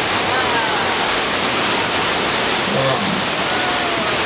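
Steady, loud rush of a large volume of water pouring out in a staged flood effect, like a burst water main. A few faint high sliding tones sound over it.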